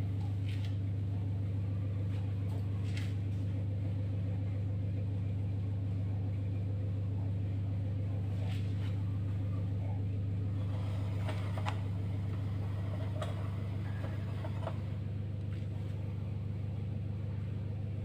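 Dishwasher running at the start of its wash cycle, drawing in water and beginning to wash: a steady low hum with a few faint clicks.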